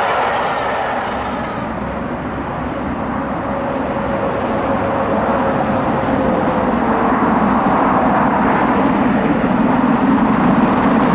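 The rushing clatter of a passing train's coaches eases away, then a steam locomotive running at speed approaches, its exhaust and running noise building steadily louder into a deep rumble.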